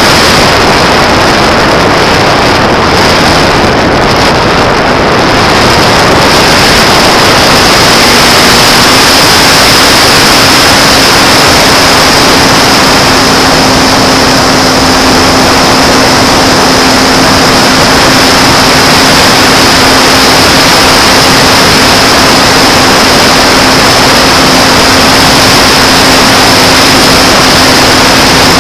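Electric motor and APC 5.5x4E propeller of a Sky Surfer RC glider running steadily, heard from a camera on the plane, with a loud rush of wind over the microphone and a steady high whine. The motor's pitch steps up slightly about a third of the way in.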